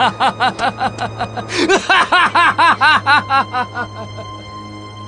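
A man laughing hard: two runs of rapid 'ha-ha-ha' bursts, about six a second, the second run longer and louder, dying away about four seconds in. Film score music plays underneath.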